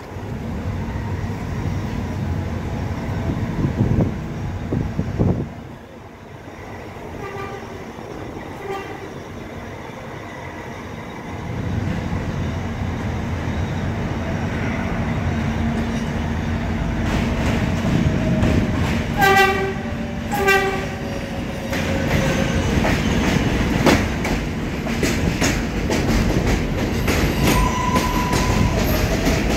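R188 subway train approaching and running past on the track, its wheels rumbling and clattering on the rails. The horn gives two pairs of short blasts, a faint pair about seven seconds in and a louder pair about twenty seconds in. A falling whine runs under the second pair.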